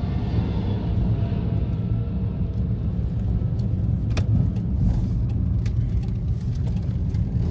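Car driving on a wet street in the rain, heard from inside the cabin: a steady low rumble of engine and tyres, with scattered light clicks and one sharper click about four seconds in.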